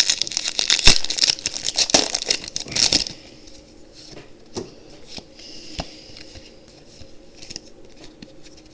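Foil booster pack wrapper crinkling and tearing open for about three seconds, then quieter scattered rustles and light ticks.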